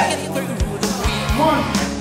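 Rock music with a singing voice over drum hits and sustained bass notes.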